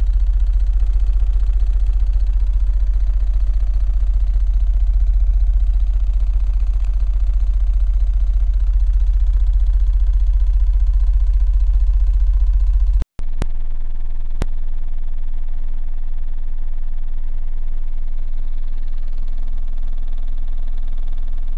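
18-inch RE Audio car subwoofers playing a steady 15 Hz test tone, a very deep, unbroken rumble, driven hard to heat up the voice coils. It breaks off briefly about thirteen seconds in and resumes a little quieter.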